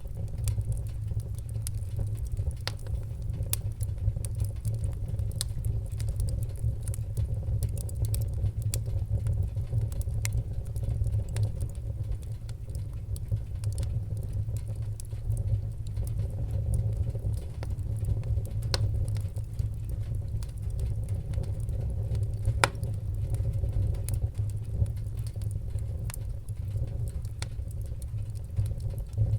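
Wood fire burning in a fireplace, crackling with frequent sharp, irregular pops over a steady low rumble.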